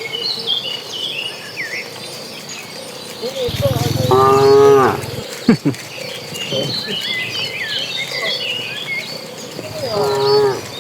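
Cattle mooing: one long moo about four seconds in and a shorter moo near the end, over steady high chirping in the background.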